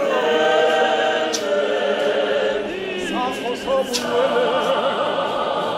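Large church congregation of men and women singing a hymn together, many voices holding long notes that waver.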